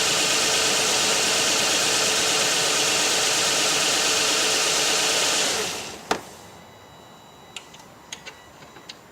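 The 3.5-litre V6 of a 2007 Nissan Quest idles steadily while one cylinder is dead from a failed ignition coil that gives no spark. About five and a half seconds in the engine sound falls away, followed by a sharp click and a few faint ticks.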